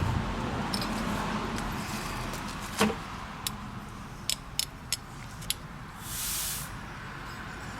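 A series of sharp metallic clicks and taps, one louder than the rest, over a steady background noise, then a short hiss lasting under a second.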